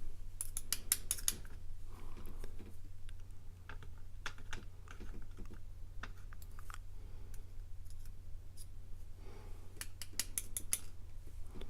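Small metallic clicks and ticks from handling a disassembled padlock's pins, springs and tools. A rapid run of clicks comes about half a second in and another about ten seconds in, with scattered single ticks between.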